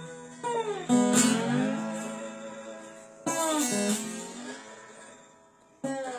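Blues slide guitar played solo: short plucked phrases whose notes glide up and down in pitch under the slide. After the second phrase the notes ring out and fade almost to nothing, and a new phrase starts near the end.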